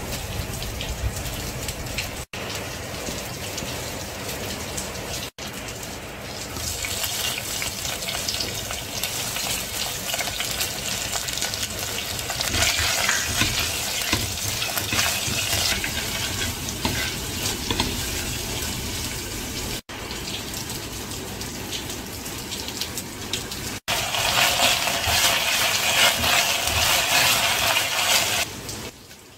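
Mustard and cumin seeds, then sliced shallots, curry leaves and dried chillies sizzling in hot oil in an enamelled cast-iron pot while being stirred with a spatula. The sizzle grows louder about a quarter of the way in and again near the end, and cuts out for an instant a few times.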